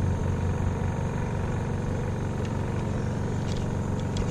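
Small engine on a bowfishing boat running at a steady idle, with a few light clicks near the end.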